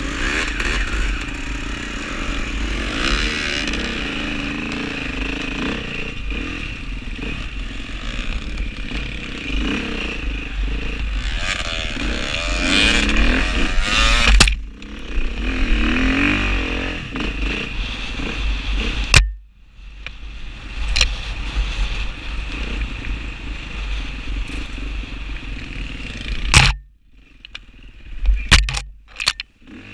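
KTM dirt bike engine revving up and down as the bike is ridden through soft sand, with rattling from the bike. The sound breaks off abruptly several times in the second half.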